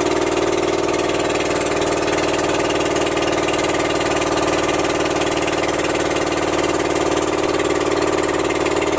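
Boat engine running steadily under way: a loud, even drone with a strong hum.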